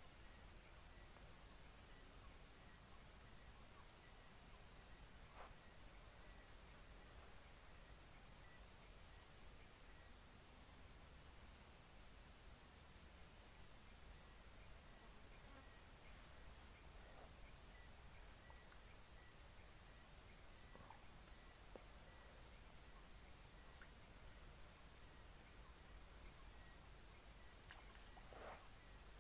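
Faint, steady, high-pitched drone of insects over quiet riverside ambience, with a few faint high chirps about five seconds in.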